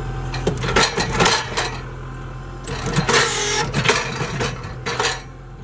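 Kubota L-series tractor's diesel engine running while the rear three-point hitch is shaken to seat a York rake's pins in the quick-hitch latches, which are not fully locked in. There is repeated metallic clanking and knocking from the hitch and implement.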